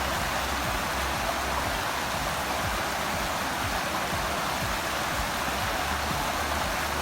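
Steady rush of fast-flowing water from a stream running high with snowmelt.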